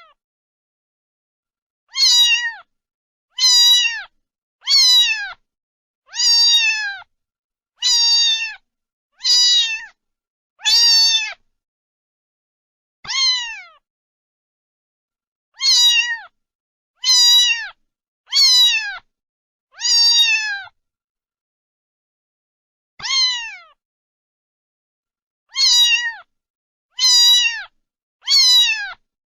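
A cat meowing over and over: about sixteen short meows, each dropping in pitch at the end, separated by dead silence.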